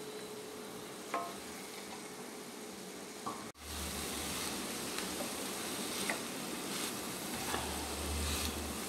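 Chopped flat beans (amarakkaya) sizzling steadily in oil in a kadai, with a few light clicks and scrapes of the spatula. A little past three seconds the sound cuts out for a moment, then the sizzle comes back slightly louder.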